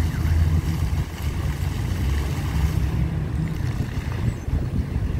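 Wind buffeting the microphone, an uneven low rumble, over a fainter hiss of a fountain jet splashing into a pool. The hiss eases about three seconds in.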